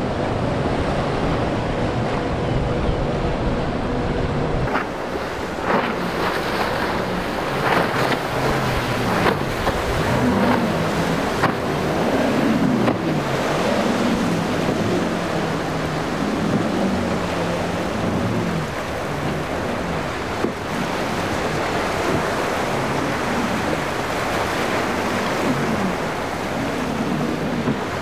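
Rough surf and wind on the microphone, with a few wave crashes, over the engine note of twin Mercury Racing 450 hp outboards that rises and falls in pitch as the boat runs through breaking inlet waves.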